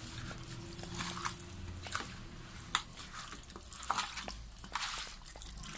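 Hands mixing raw chicken and potato chunks in a red sauce in a large metal tray: soft, irregular wet squishes, with one sharp tick about halfway through.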